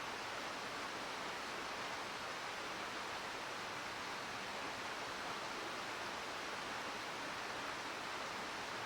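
Steady rushing murmur of a mountain stream flowing over rocks, an even wash of water noise with no change.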